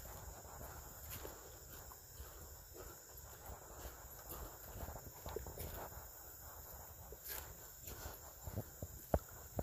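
Faint footsteps of a hiker walking a forest trail, soft crunches that get louder near the end, over a steady high background hiss that may be insects.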